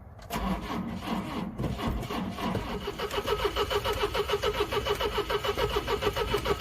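The 1970 Volvo 145's four-cylinder engine being cranked by its starter motor without catching. It begins unevenly and then settles into a steady, fast rhythmic pulsing with a whine over it, the sign of a long-sitting engine that won't fire.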